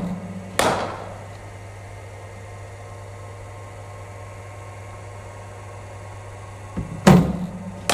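Steady low hum of a cricket bowling machine. A sharp knock with a ringing tail comes just after the start, and two more knocks come near the end, less than a second apart: a ball fired from the machine and met by the bat.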